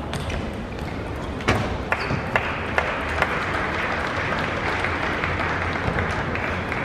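A table tennis ball struck with a click at the start of a rally's last exchange. Then crowd applause and cheering swell up after the point and hold, with a run of five sharp clicks about half a second apart as the applause begins.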